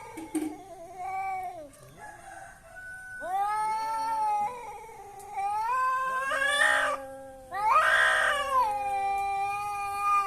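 Cats caterwauling in a fight: long, drawn-out yowls that waver up and down in pitch, several in a row, with rougher, louder screeching yowls about six and eight seconds in.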